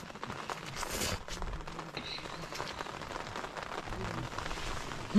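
A person slurping and chewing noodles, over a steady background hiss.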